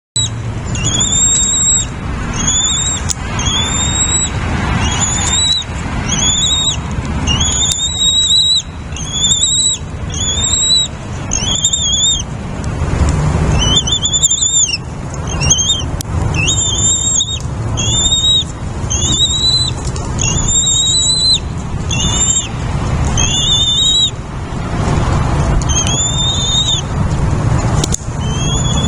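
A small bird calling over and over, a high clear call about once a second, each rising and then holding. Under it runs a loud, steady low rumble.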